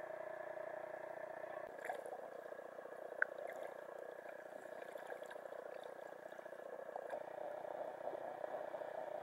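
Muffled wash of shallow surf around a camera that is dipped underwater and lifted out again, with a few faint knocks and clicks about two and three seconds in.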